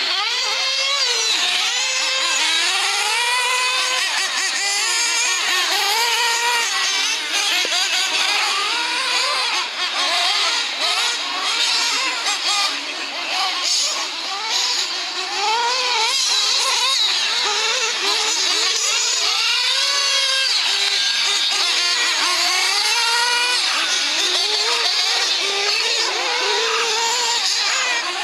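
Several 1/8-scale off-road RC cars racing, their small high-revving motors running together in overlapping whines that rise and fall in pitch as they accelerate and brake round the track.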